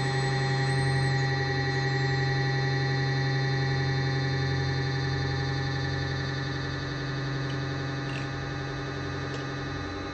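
Hydraulic press pump and motor running with a steady buzzing hum as the ram bears down on an M8 steel bolt, bending and crushing it; a couple of faint ticks come near the end.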